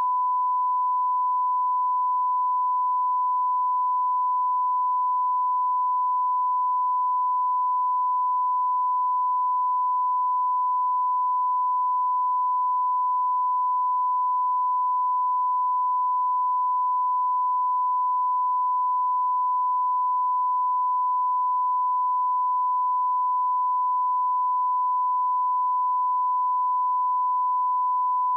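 A steady 1 kHz sine test tone at a constant level, the line-up reference tone laid at the head of a film sound mix.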